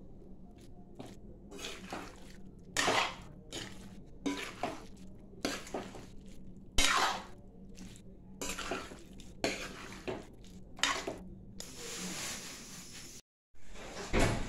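Metal spatula scraping and clanking against an aluminium kadai while stirring chunks of papaya, in a dozen or so irregular strokes with a steady faint hum beneath. After a brief dropout, one louder knock near the end.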